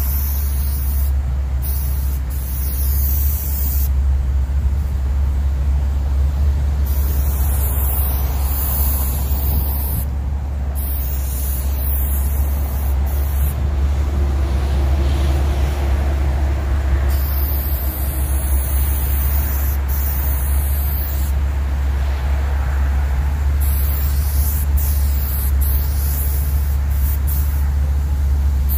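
Aerosol spray paint can (Rust-Oleum black) hissing in repeated spells of a few seconds, stopping and starting as the stripes are laid on. A steady low rumble runs underneath.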